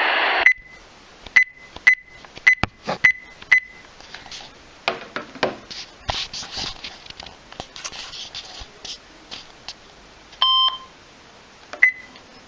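Weather radio's broadcast hiss cuts off about half a second in, followed by short high electronic beeps: about six in the first four seconds, one lower beep at around ten and a half seconds, and another high one near the end. Faint clicks and rustling sit between the beeps.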